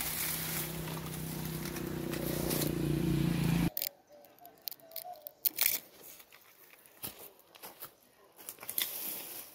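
Rubbing and scraping of a phone being handled and propped up close to the microphone, over a low hum, cutting off abruptly a little under four seconds in. After that come sparse light crackles and taps of footsteps in slippers on dry cut grass and leaves.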